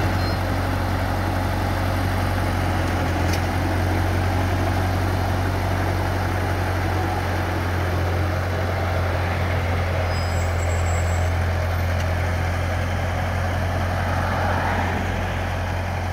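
Ferguson TO35 tractor's four-cylinder gasoline engine running at a low, steady speed as the tractor rolls off the trailer ramps and drives forward.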